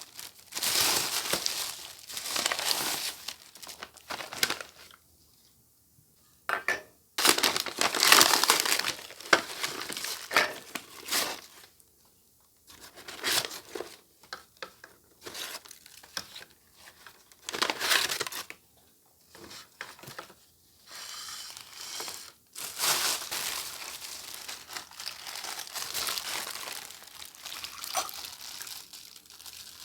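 Packaging being handled: crinkling and rustling in irregular bursts with short pauses, a little tearing among them.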